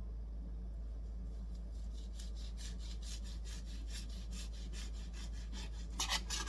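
Quick, even scraping strokes of a kitchen utensil working food, about five a second, starting about two seconds in, with a louder scrape near the end.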